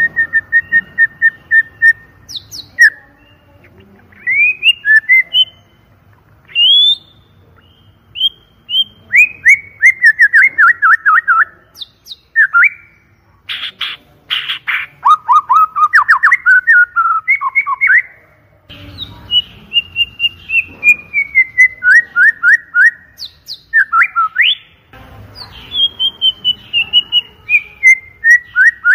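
White-rumped shama (murai batu) singing loudly: runs of rapid repeated clear whistled notes and falling trills, broken about halfway through by a short harsh, rasping burst.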